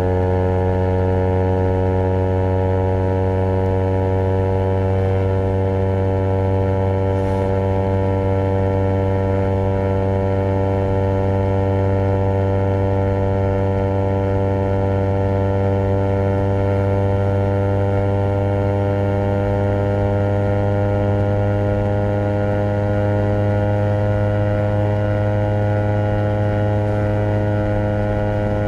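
Honda CBR250RR's parallel-twin engine through a Project 79 slip-on exhaust, running at steady, nearly constant revs with only a slight slow drift in pitch.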